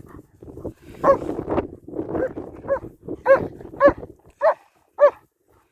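A dog barking repeatedly in play, a short bark about every half second, the barks growing more regular towards the end.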